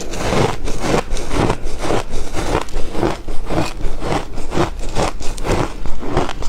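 A person chewing a mouthful of ice close to the microphone: steady, rhythmic crunching, about two to three crunches a second.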